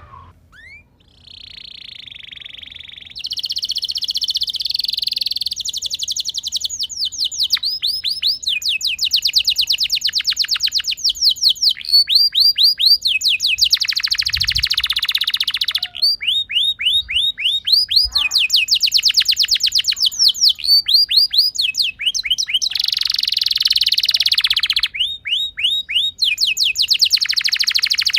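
Domestic canary singing a long rolling song. Runs of quick falling trill notes repeat many times a second, alternating with buzzy held phrases. A softer phrase comes in the first few seconds, before the full song takes over.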